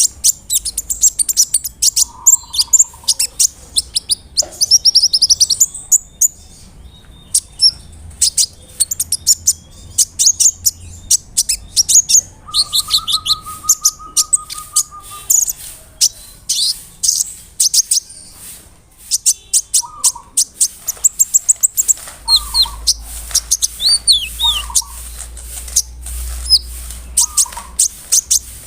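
Kolibri ninja (konin) singing in full voice: a fast, continuous chatter of sharp high chirps, clicks and short trills. About halfway through, a lower trill is held for a few seconds.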